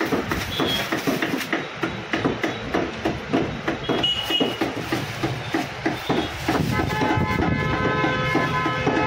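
Cleavers chopping mutton on wooden log blocks, a fast, uneven run of knocks several times a second. From about six and a half seconds in, a long, steady horn-like tone sounds over the chopping.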